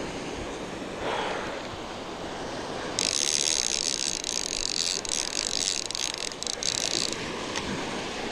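Surf washing on the beach, then a conventional fishing reel's gears rattling in a fast, high-pitched whir for about four seconds as line is cranked in on a hooked shark, stopping abruptly.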